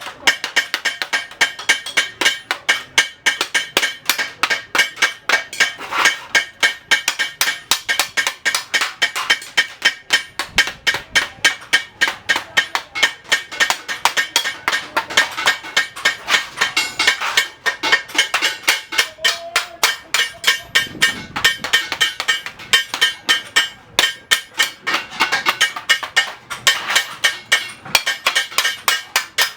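Hammer striking metal scrap in rapid, steady blows, several a second, each with a metallic ring: dismantling scrap such as computer power supplies to recover the copper.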